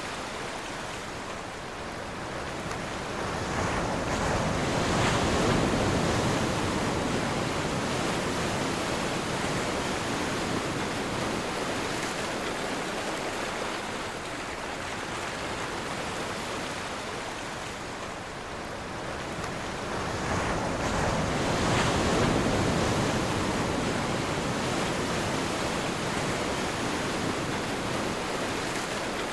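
Ocean waves breaking on the shore: a steady wash of surf that swells twice, once about five seconds in and again about twenty-two seconds in, each time falling back to a constant hiss.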